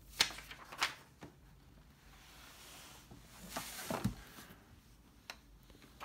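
A typewriter's worn carrying case being handled and set down on a wooden desk: a few soft knocks near the start, a soft scuffing in the middle, and more knocks about four and five seconds in.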